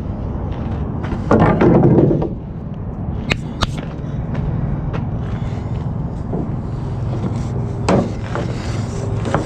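Wooden boards knocking and scraping together as they are handled, loudest for about a second near the start, with a few sharp clicks later, over a steady low hum.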